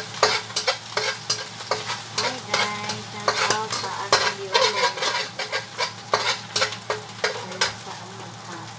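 Food sizzling in a frying pan while a utensil stirs and scrapes it, knocking against the pan a few times a second at irregular spacing.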